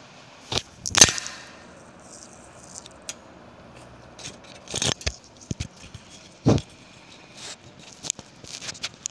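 A few scattered knocks and clicks from someone moving about and handling things. The loudest comes about a second in, with a cluster of quieter ticks near the end.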